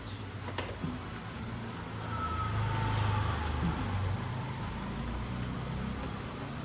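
A motor vehicle engine running with a low hum, growing louder about two seconds in and easing off again after about four seconds, with a sharp click near the start.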